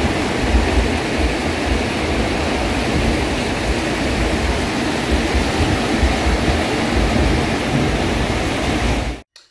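Heavy rain and strong wind in a summer storm, steady and loud, with gusts of wind buffeting the microphone. It cuts off near the end.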